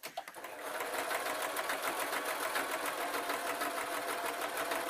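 Singer electric sewing machine stitching a straight seam through fleece: it starts up, builds to speed in about the first second, then runs steadily with the needle ticking in a fast, even rhythm.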